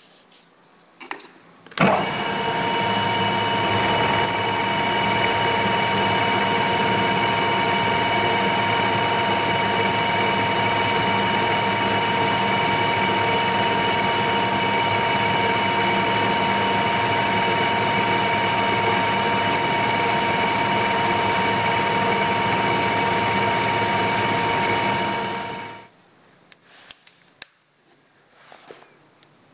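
Milling machine spindle running with a gold TiN-coated end mill cutting a keyway in a round bar: a steady machine sound with several fixed whining tones that starts abruptly about two seconds in and stops suddenly near the end. A few light metallic clicks follow as a key is fitted into the slot.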